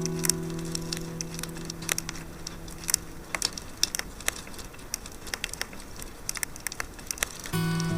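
Wood campfire crackling, with scattered sharp pops. An acoustic guitar chord rings and fades away over the first few seconds, and the guitar starts playing again near the end.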